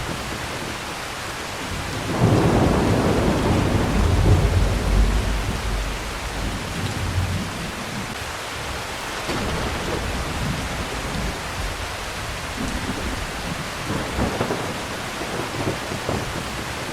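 Steady heavy rain with rolling thunder. A loud, deep rumble swells about two seconds in and dies away a few seconds later, and fainter rumbles follow near the end.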